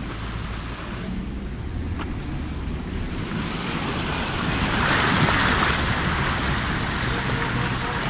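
River water rushing and splashing along the side of a Ford Ranger pickup wading through a crossing; the wash builds up about halfway through and stays strong, with the engine's low hum underneath.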